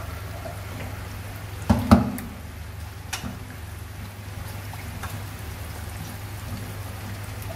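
Battered grass-carp pieces shallow-frying in oil over medium heat, sizzling and bubbling steadily during a first, light fry. About two seconds in come two sharp knocks of chopsticks against the pan, over a steady low hum.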